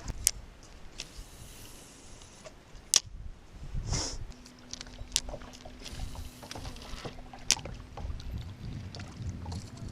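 Boat sitting on open water: low wind and water rumble with three sharp clicks spread through it, a short hiss about four seconds in, and a steady low hum that starts right after the hiss and continues.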